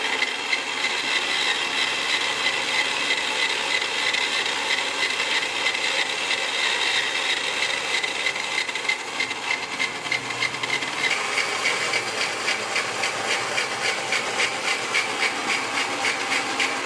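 A motor-driven vegetable slicer built from a mixer grinder running with a steady whine while it slices a thick, unpeeled raw cassava root. A rapid, even rattle of the cutting comes through, and it grows sharper and more regular about halfway through.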